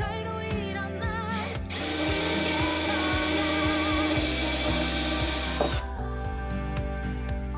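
Background music with a wavering melody over steady bass notes. From about two seconds in until about six seconds, a loud, even hiss or whir covers it, like a power tool running.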